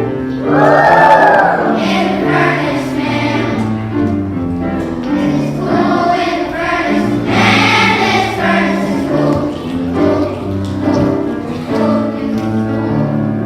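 Children's choir singing a song with instrumental accompaniment and a steady bass line.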